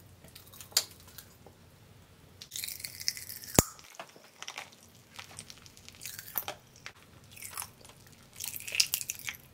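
Pop Rocks candy crackling and crunching in a child's mouth as she chews: scattered short pops and crackles, with one sharp snap about three and a half seconds in.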